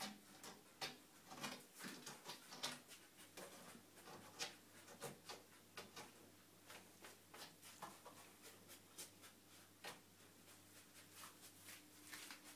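Faint, irregular clicking and scratching of a cat's claws on hard tile and against the edge of a door as it paws and rakes under the gap, a few scrapes a second in uneven clusters.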